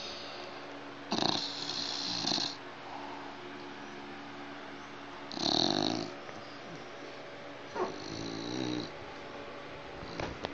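Bulldog snoring in her sleep: three raspy snores a few seconds apart, each lasting about one to one and a half seconds.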